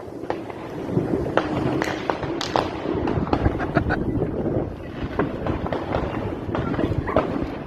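Fireworks going off: a cube firework cake firing a rapid, irregular string of sharp cracks and bangs over a continuous rumble.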